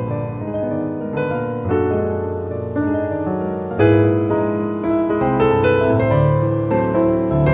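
Background piano music, a slow melody of sustained notes with chords, the loudest about four seconds in.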